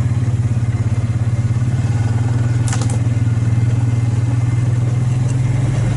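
Vehicle engine running steadily at low revs while driving, with a brief rattle about two and a half seconds in.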